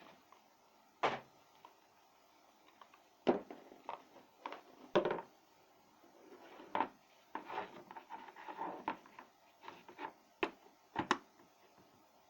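Hard objects being handled: irregular knocks and clicks, with a stretch of scraping or rubbing about halfway through.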